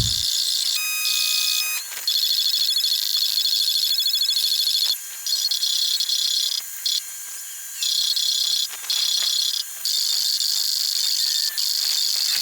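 High-pitched electronic beeping and jingling from a small electronic device, in rapid runs that stop and start every second or so, with a pair of steady tones about a second in.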